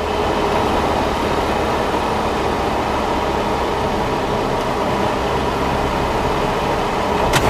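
Steady motor-vehicle engine and road noise with a low hum, as on a dashcam recording, and a single sharp click near the end.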